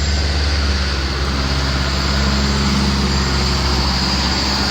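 Engine of a heavy construction machine running steadily, a low even drone.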